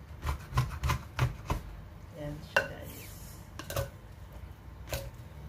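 A spoon knocking and scraping against a clay pot while mixing cooked rice in it: a quick run of about five clicks in the first second and a half, then a few more spaced out.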